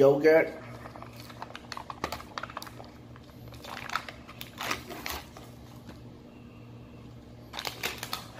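A plastic yogurt cup and its foil lid being handled: scattered crinkles and light clicks, in a flurry during the first five seconds and again briefly near the end.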